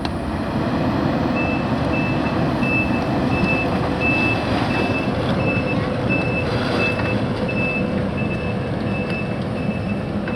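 Backup alarm of a heavy construction machine beeping steadily about twice a second, starting about a second in, over the steady running of its engine as it reverses.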